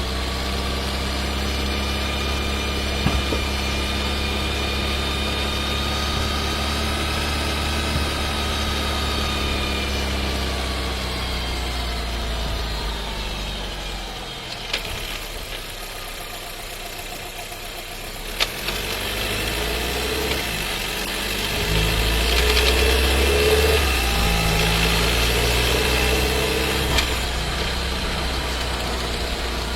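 Skoda Scala's 1.5 TSI four-cylinder engine and DQ200 seven-speed dry-clutch DSG heard from inside the cabin. The engine note falls as the car slows, the gearbox shifts down to a lower gear partway through with a few short clicks, then the engine note rises again under acceleration. The owner counts this shifting as abnormal behaviour in a new car.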